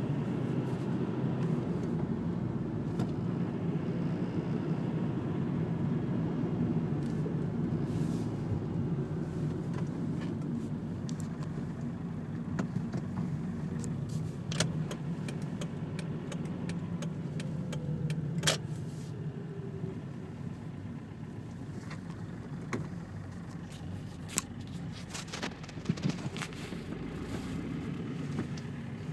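Steady road and engine noise of a car driving, heard from inside the cabin, with a few sharp clicks scattered through it, the sharpest about eighteen seconds in.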